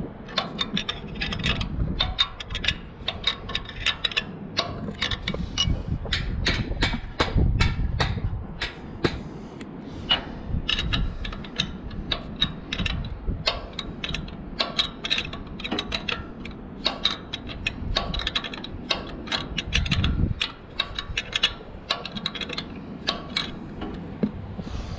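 Ratcheting wrench tightening a carriage bolt on a steel light-mounting bracket: runs of quick metal clicks with short pauses between strokes.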